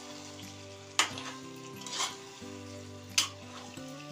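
A slotted metal spatula stirring stuffed baby eggplants in a kadhai, scraping through the food with two sharp clacks against the pan, about a second in and again a little after three seconds.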